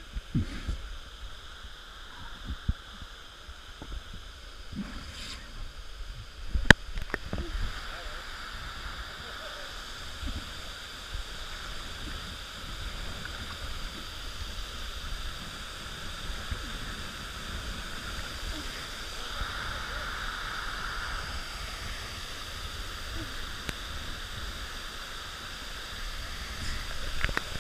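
Waterfall pouring into a rock plunge pool: a steady rushing of water that grows louder over the first half, heard from a camera at the water's surface. Water slaps and sloshes against the camera with uneven low bumps, and there is one sharp knock about seven seconds in.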